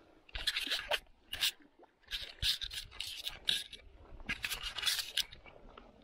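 Several irregular short bursts of scraping and rustling.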